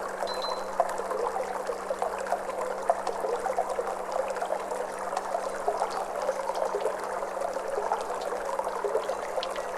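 Flowing water trickling and gurgling steadily, a dense run of small splashes and bubbles with no pauses, over a faint steady low tone.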